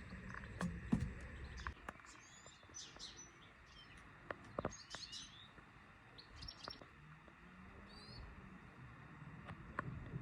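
Small birds chirping in short, scattered calls and trills, faint. A few faint knocks break in, the sharpest about a second in.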